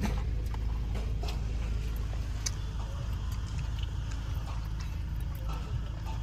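Steady low rumble of a car on the move, heard from inside the cabin, with scattered small clicks and rattles.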